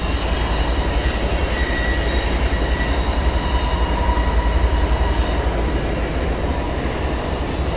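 Long freight train of autorack car-carrier wagons rolling past: a steady low rumble with faint, steady high squeal from the wheels.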